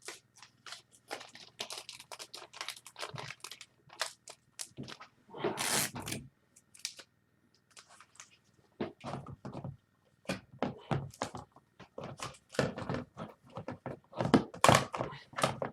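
Trading cards being handled on a table: scattered taps, clicks and rustles, with louder rustling about six seconds in and again near the end.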